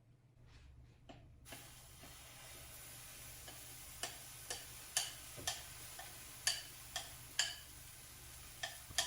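Pancake cooking sounds: a faint steady sizzle sets in about a second and a half in. From about halfway, sharp utensil clicks come roughly twice a second.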